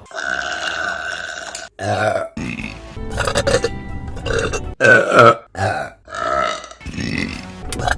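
Women burping in a quick run of separate burps, one after another. The first is long and drawn out, and the later ones are shorter.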